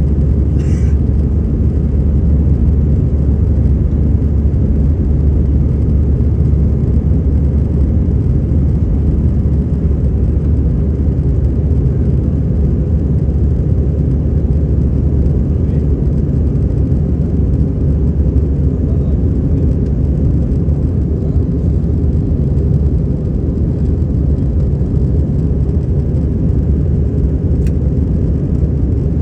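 Steady low rumble of airliner cabin noise, the even roar of the aircraft's engines and air systems heard from inside the cabin.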